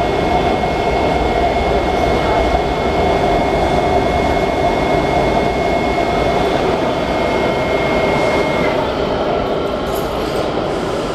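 A Washington Metro 7000 Series subway car running at speed through a tunnel, heard from inside the car as a steady rumble of wheels and running noise. A steady high whine sits over it and cuts off about three-quarters of the way through.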